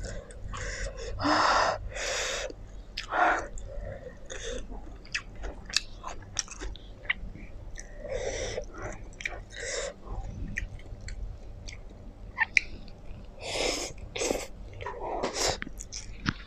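Close-up eating sounds: black bean noodles slurped with chopsticks, with wet chewing and lip-smacking clicks between several short slurps.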